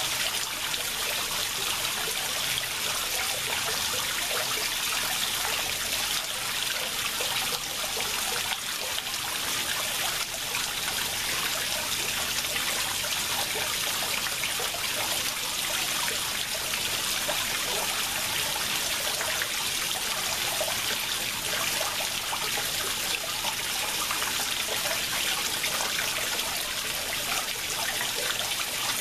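Water falling and splashing steadily into a koi pond, an even, unbroken trickling wash with no pauses.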